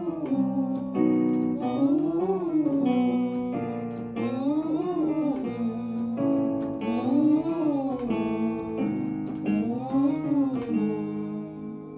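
A singer vocalizing a vowel in rising-and-falling scale runs, four runs about two and a half seconds apart, over guitar accompaniment. This is a vowel-shaping warm-up exercise.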